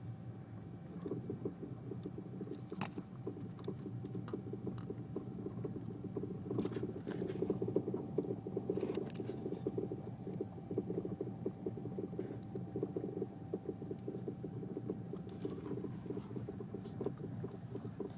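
Rear rattle of a BMW E39: a rapid, continuous clatter with a couple of sharper knocks, about 3 and 9 seconds in. Its cause is unknown to the owner.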